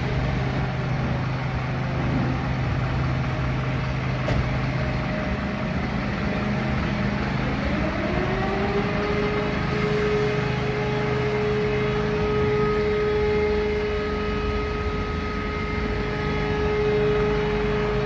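Fire engine's diesel engine running steadily while stationary. About seven seconds in, a civil-defence warning siren winds up in pitch and then holds one steady tone.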